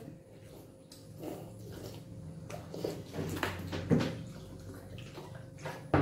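Close mouth sounds of eating rosogolla without hands: slurping the sugar syrup off a plate and gulping water from bottles, broken by several short sharp clicks and knocks.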